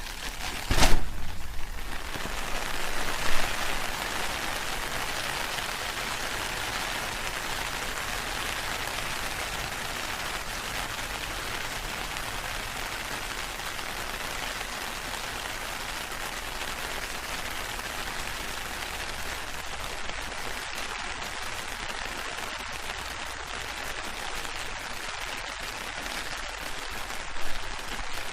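Steady rain falling on an open umbrella, after a sharp snap about a second in.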